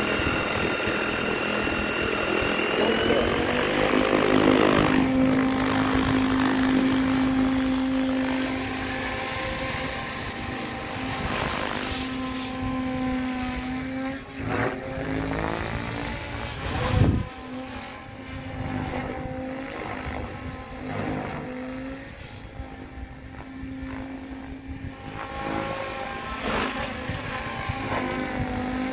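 SAB Goblin Black Thunder 700 electric RC helicopter spooling up, its whine climbing in pitch over the first few seconds to flight headspeed. It then flies with a steady rotor and motor hum that wavers as it manoeuvres, with one sudden loud burst about 17 seconds in.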